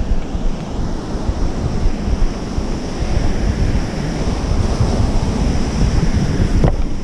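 Wind buffeting a GoPro's microphone in gusts, over the steady wash of breaking ocean surf.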